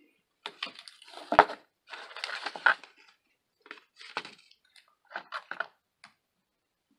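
Cardboard mailer box opened by hand: scraping and rustling of the flaps, with a sharp snap about one and a half seconds in, then quieter handling as a trading card is drawn out of the stack.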